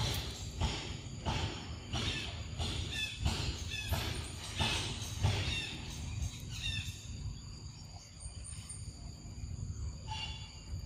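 A macaque chewing a piece of mango: a run of short wet bites and smacks about every two-thirds of a second, easing off after about five seconds. Short high bird chirps come in now and then.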